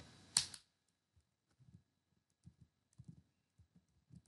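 Computer keyboard and mouse clicks: one sharp click about half a second in, then faint, scattered clicks and taps while a file name is selected and copied.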